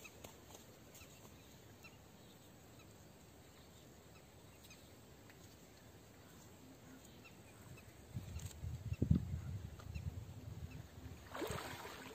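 Faint background at first, then from about eight seconds a low, uneven rumble. Near the end comes a short splash as a hooked fish is drawn out of the water at the bank.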